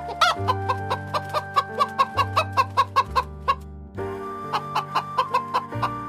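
Chickens clucking in a quick run of short, sharp calls, about five a second, which breaks off and picks up again briefly later. Background music with sustained notes plays underneath.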